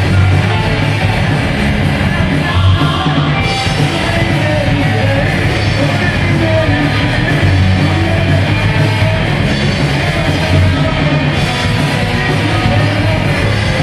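Live rock band playing loudly, with a lead singer singing into a handheld microphone over electric bass guitar and electric guitar.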